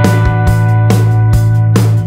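Background music: held chords over a strong bass note, with a steady drum beat of about two beats a second.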